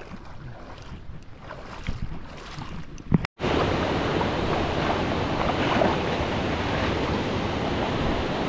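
Steady rushing of wind and waves. It comes in suddenly and much louder after a brief dropout about three seconds in. Before that there is quieter outdoor noise with a few faint knocks.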